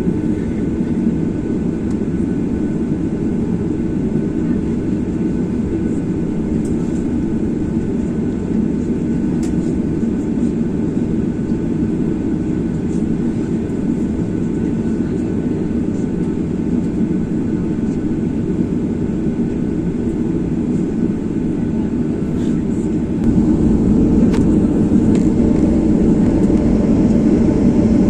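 Jet airliner cabin noise: the steady roar of the engines and airflow heard from a passenger seat, with a faint steady whine above it. It grows louder, with more deep rumble, about three-quarters of the way through.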